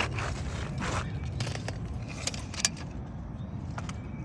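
Light metallic clicks and scrapes of a tape measure and shingle being handled while the roofer measures a replacement asphalt shingle, with one sharp click about two and a half seconds in.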